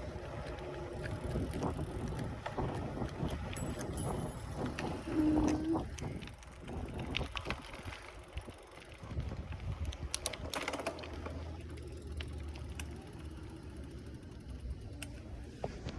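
Riding noise from a bicycle on the street: rumble and wind buffeting the microphone, with scattered small clicks and ticks. A brief squeak comes about five seconds in, and a cluster of sharper clicks comes around ten to eleven seconds in.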